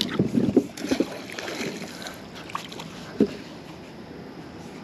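Water splashing and sloshing around a kayak, with a few knocks in the first second and one short, sharp low plunk about three seconds in.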